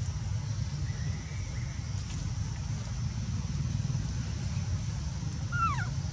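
Steady low rumble of outdoor background noise. Near the end, a baby macaque gives a short, high, squeaky call that falls in pitch.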